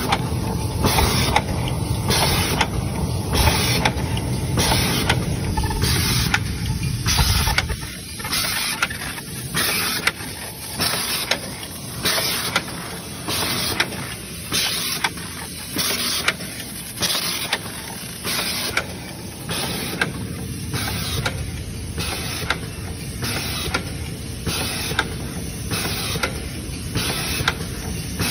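A pyramid tea bag packaging machine with outer-envelope unit running in its steady packing cycle: a regular rhythm of mechanical clacks and short hissing puffs, repeating about once a second. A low rumble underneath stops about eight seconds in.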